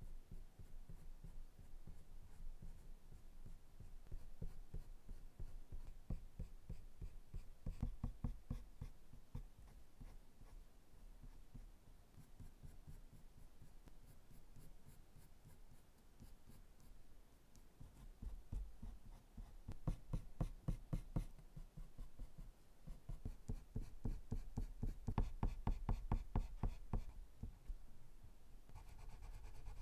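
Prismacolor colored pencil scratching across drawing paper in rapid short strokes, with louder bouts of heavier shading about a quarter of the way in and again about two-thirds through.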